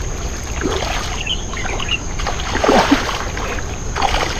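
Shallow river water splashing and sloshing as a cast net is hauled in and gathered up by hand, with louder splashes a little past halfway and again near the end.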